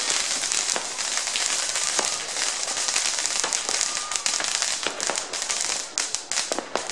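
Fireworks going off all around: a thick, continuous crackle of many overlapping pops and bangs, thinning to a string of separate sharp cracks in the last second or two.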